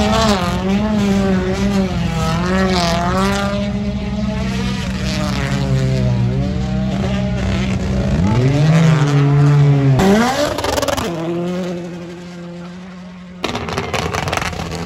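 Rally cars' engines revving hard, the pitch rising and falling again and again with throttle and gear changes, with a sharp climb in revs about eight seconds in. There is an abrupt change in the sound about thirteen seconds in.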